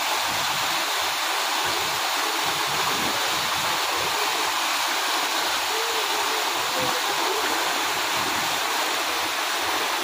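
Waterfall pouring down onto a man standing beneath it and splashing into a shallow rocky pool: a steady, dense rush of falling water.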